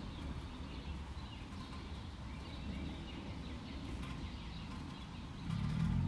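Street ambience: a steady low rumble of traffic with birds chirping on and off. A vehicle comes up louder near the end.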